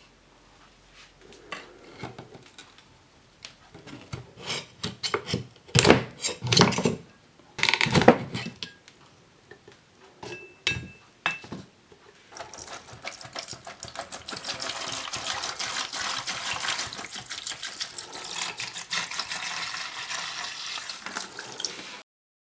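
Hard objects knocking and clattering, followed from about twelve seconds in by a steady rush like water running into a sink, which cuts off suddenly near the end.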